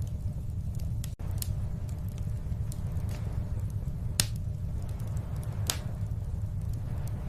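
Wood fire crackling in a fireplace: irregular sharp pops over a steady low rumble, the loudest about four seconds in and again nearly six seconds in.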